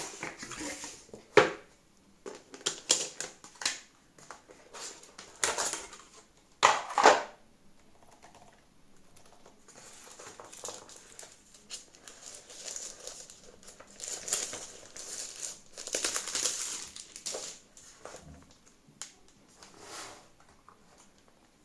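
A keyboard's packaging being opened and handled: irregular crinkling and rustling, with a few sharp knocks in the first half.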